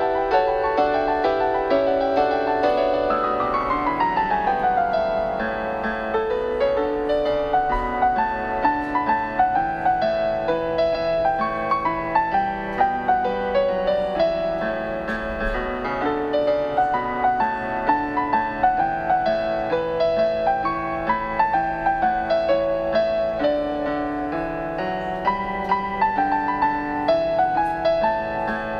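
Light background piano music, a steady run of single notes with a falling scale about three to five seconds in.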